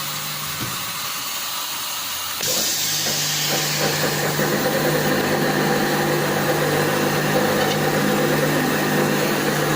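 Machinery running with a steady hum; about two and a half seconds in it gets louder and a hiss joins in, then holds steady.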